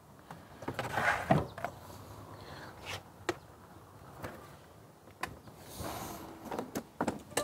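Hard plastic knocks, scrapes and clicks as an electric scooter's swappable battery pack is lifted out of its battery compartment and handled, loudest in a scraping clatter about a second in, then a few separate clicks and knocks.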